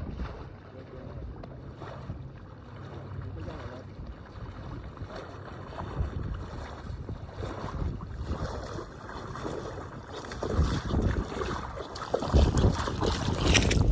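Wind rumbling on the microphone, gusting harder over the last few seconds.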